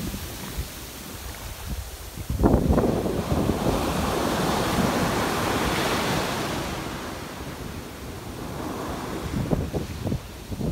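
Ocean surf on a sandy beach. A wave breaks suddenly about two seconds in and its foam hisses up the sand for several seconds before fading. Smaller waves break near the end.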